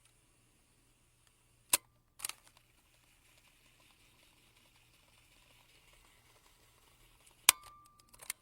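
Fast-forward sound effect: a sharp mechanical click and a second one half a second later. Then a faint steady whir for about five seconds, ending in another sharp click followed by a couple of quick ticks.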